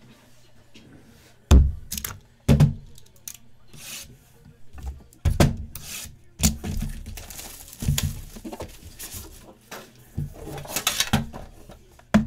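Sealed trading-card hobby box being opened by hand: a few sharp knocks of the cardboard box against the table, then a long stretch of rustling, rubbing and tearing as the wrap and packaging come off and the foam-lined inner box is lifted out.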